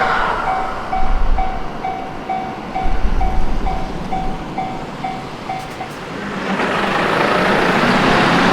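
Railway level-crossing warning bell ringing at about two strikes a second as the noise of a passing Shinkansen train fades, then stopping about six seconds in. Near the end a rumble of another approaching vehicle builds up.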